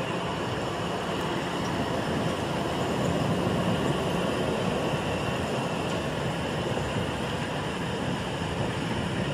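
San Diego Trolley light-rail train running past close by: a steady rumble of steel wheels on the rails that swells a little a few seconds in.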